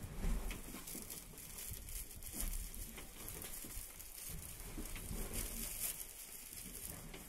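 Rustling and scattered light knocks from a handheld phone camera being moved through a fishing boat's cramped cabin, over a steady background hiss, with a few low thumps.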